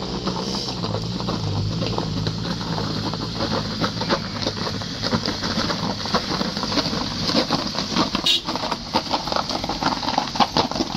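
Compact SUV engine pulling up a steep, rocky dirt track. From about four seconds in, loose stones crunch and crack under the tyres in a dense crackle as the vehicle comes close.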